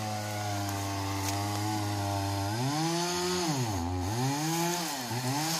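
An engine running at a steady pitch, then revving up and down a few times in the second half.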